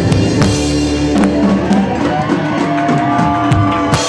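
Live band music: grand piano, drum kit and electric guitar playing together, with sharp drum and cymbal hits and a strong hit near the end.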